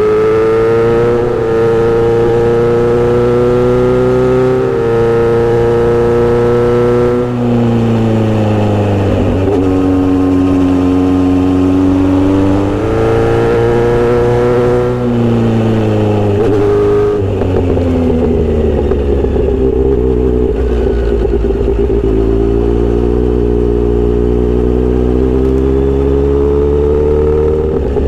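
Kawasaki Z900RS inline-four running loud through a Misty Kintaro short steel-pipe exhaust. The note climbs and steps as the rider accelerates through the gears. The pitch falls away as he eases off about a quarter of the way in and again just past halfway, then climbs slowly once more toward the end.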